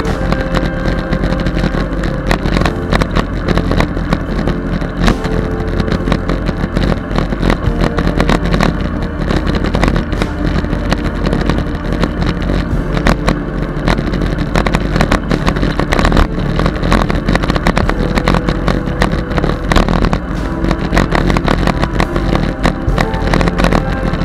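Bicycle-mounted camera riding along a path: wind buffeting the microphone as a steady loud rumble, with many small irregular knocks and rattles from the road surface.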